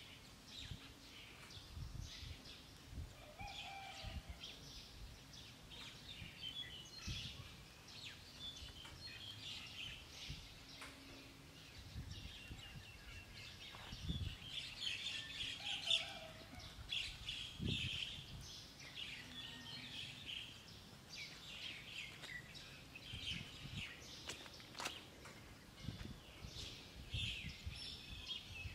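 Birds chirping and calling, many short overlapping chirps with a few lower calls among them, over a steady outdoor background.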